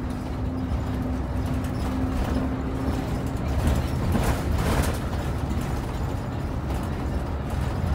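Route bus driving along a road, heard from inside the cabin: a steady low engine and road rumble with a faint hum in the first few seconds and a brief swell of hiss about halfway through.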